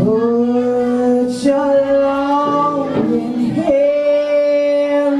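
A woman singing long held notes into a microphone, changing pitch a few times, with the live band holding a chord underneath.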